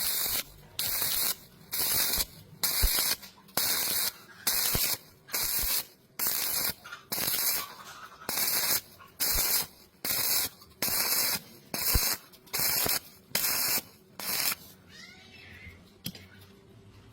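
Stick-welding arc crackling in short, evenly spaced bursts, about one every three-quarters of a second, with the arc broken and restruck each time. This is a stitch technique that keeps the heat low so the thin metal doesn't burn through. The bursts stop about fourteen seconds in.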